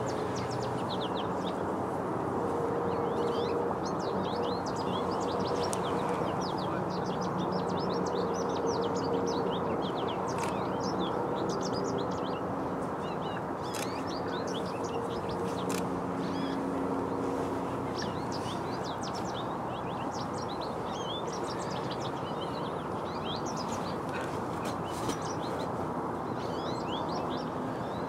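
Many small songbirds chirping in quick, high, scattered notes over a steady low background rumble.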